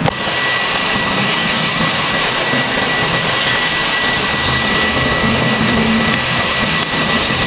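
A small electric blower switches on and runs steadily: an even rushing hiss with a thin, constant high whine.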